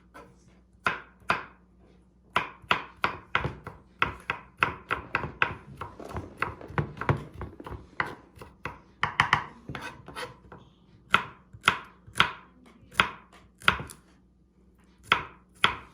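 Kitchen knife chopping on a cutting board: a long run of sharp, uneven strikes, several a second, with two short pauses.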